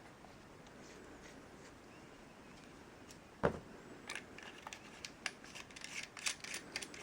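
A single sharp knock about halfway through, then a quick run of light clicks and taps from small hard parts being handled.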